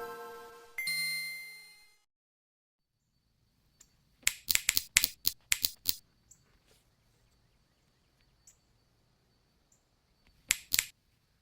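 A chime rings out and fades away. After a pause comes a quick run of about eight sharp taps, with two more near the end.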